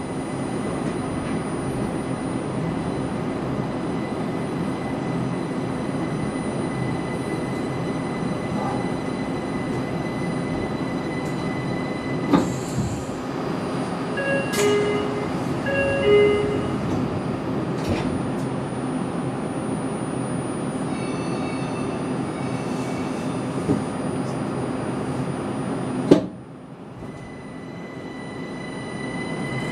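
Steady running hum of the Linimo maglev train heard from inside the car, with a few short tones around the middle and a sharp clunk late on, after which the sound drops sharply and then slowly builds again.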